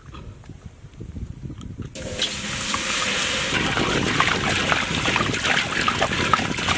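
Water poured from a large plastic can into a big aluminium cooking pot, a loud steady splashing gush that starts about two seconds in.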